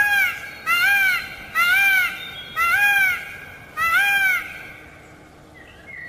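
Peacock calling: a run of five short calls about a second apart, each rising and then falling in pitch, stopping about four and a half seconds in.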